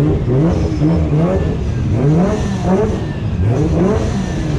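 Car engine revving in a series of short blips, its pitch rising and falling back about five times.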